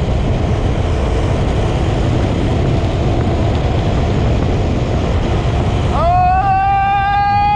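Go-kart engine running at speed, with a steady rumble and the rush of wind and road noise. About six seconds in, a high-pitched held tone rises in and holds.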